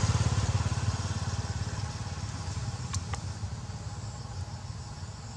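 A passing motor vehicle's engine, a low pulsing run that fades steadily away, with two faint clicks about three seconds in.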